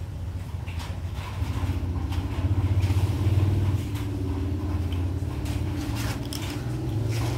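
A motor vehicle's engine humming low and steady, louder about two to four seconds in, with faint clicks of kittens crunching dry cat food.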